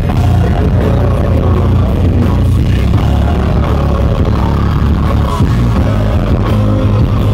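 Live band playing through a concert PA, with acoustic and electric guitars over heavy, booming bass, recorded loud from the audience.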